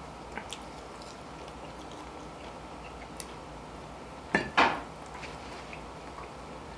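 Tableware on the eating table clattering, two quick sharp knocks a little past halfway, the second slightly longer and ringing. A few light clicks come earlier over a faint steady hiss.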